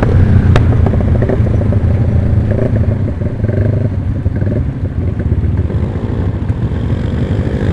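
Yamaha Jupiter Z underbone's single-cylinder four-stroke engine, bored out to 180cc, running at low speed as the bike slows for a junction, a steady low rumble.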